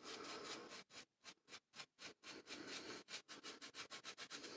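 Small shaving brush being worked in quick strokes over a lathered chin, a soft, rapid rubbing of bristles and lather at about five or six strokes a second.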